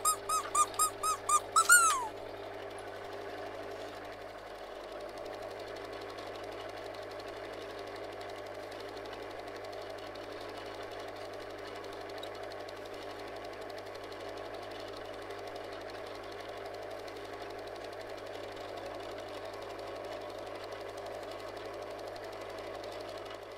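A quick run of about eight high squeaks in the first two seconds, then a steady mechanical whirr with a low hum that runs on evenly.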